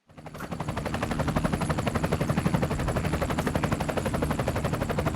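Helicopter rotor chopping: a rapid, steady, even pulse that starts abruptly.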